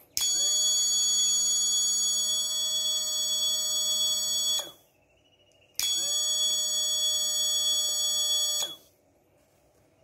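Arduino fire alarm's buzzer sounding a steady high-pitched tone twice, about four and a half seconds and then about three seconds, with a gap of about a second between, triggered by the flame sensor detecting a lighter's flame. Under it the small relay-switched DC water pump runs, its hum rising in pitch as it starts each time.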